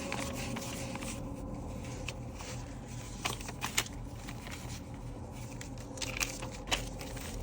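Paper banknotes being handled and counted, with crisp rustles and a scattering of sharp ticks, over a low steady hum.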